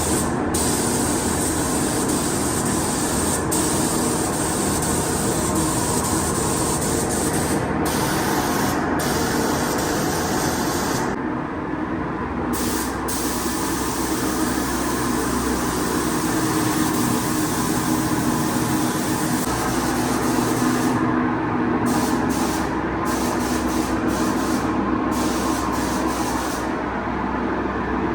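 Spray gun hissing as paint is sprayed, over the steady hum of a paint booth's fans. The hiss breaks off briefly and often as the trigger is let go.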